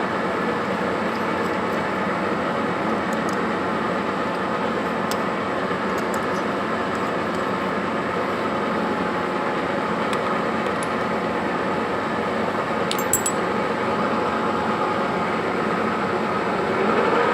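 Metal lathe running steadily, its spindle turning a crankshaft held in a steady rest, with a few light metallic clinks about thirteen seconds in.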